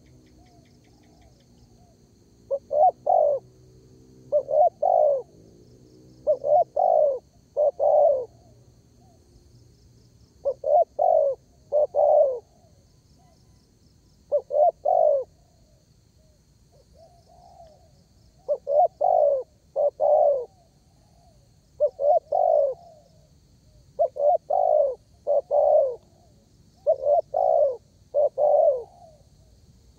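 Spotted dove (derkuku) cooing over and over, giving short phrases of a few low coos every few seconds. Faint high chirping from other small birds or insects sits far behind it.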